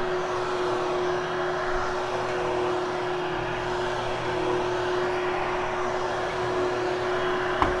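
Hoover HushTone vacuum cleaner running steadily over carpet: an even motor hum with a rushing hiss of air.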